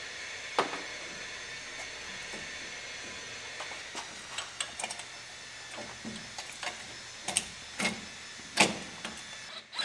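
Light knocks and clinks, scattered and irregular, as a new front wheel hub and its backing plate are fitted into the steering knuckle, over a steady low hiss.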